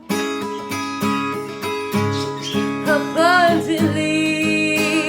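A song starts abruptly with strummed guitar and backing music, and a singing voice comes in about three seconds in.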